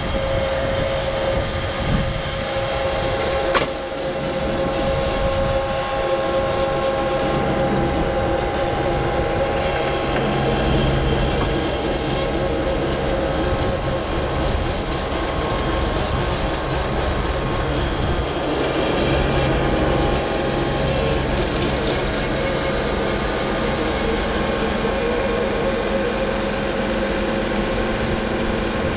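ASV RT-40 compact track loader's diesel engine running under load while its hydraulically driven 6-ft Harley power rake churns dry soil, a steady machine drone with a constant whine in it. One short knock comes about three and a half seconds in.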